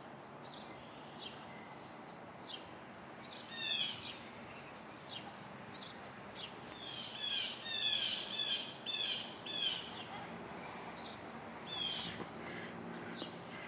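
Blue jays giving repeated harsh scolding calls, the speaker's 'throwing a fit', in a scattered series that grows loudest and most rapid in the middle.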